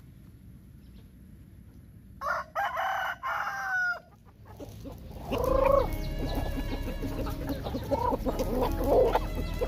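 A rooster crows once, about two seconds in, a call of nearly two seconds that cuts off abruptly; from about five seconds on, chickens cluck continuously.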